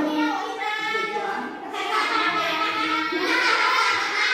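Many children's voices talking and calling out over one another.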